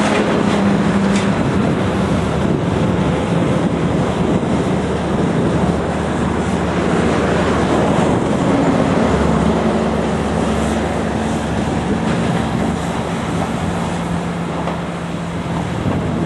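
Heavy demolition machine's diesel engine running steadily at a loud, constant pitch, with rumbling and grinding from the work.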